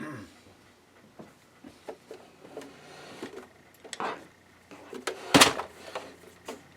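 Small clicks and taps of a screwdriver and loose screws being handled against a sewing machine's housing while its back-cover screws are taken out, with one louder knock about five and a half seconds in.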